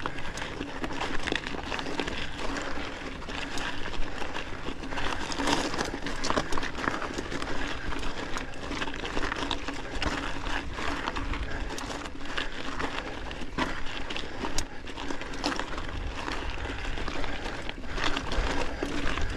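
Mountain bike grinding up a rough, rocky climb in its lowest gear: tyres crunching over loose rock, with frequent small rattles and knocks from the bike.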